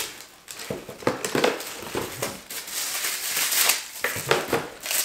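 Cardboard box and plastic bag rustling and crinkling as a package is opened by hand and its contents unwrapped, with a run of uneven crackles.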